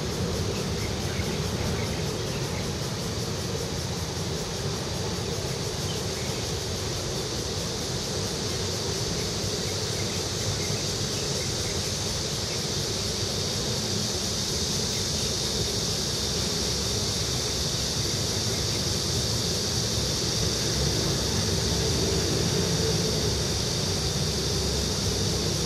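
Steady rumble of traffic on an elevated roadway, with a steady high-pitched drone above it that grows louder about halfway through.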